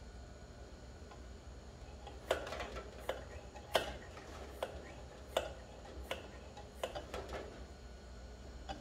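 Plunger hand pump on the fuel tank of a Petromax-type pressure lantern being worked, pressurising the tank. It gives about nine sharp clicks, roughly one every three-quarters of a second, starting about two seconds in.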